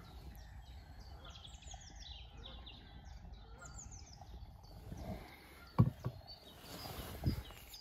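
Small birds singing in quick runs of short, falling high chirps over a low outdoor rumble. A sharp knock comes about six seconds in, and a fainter one near the end.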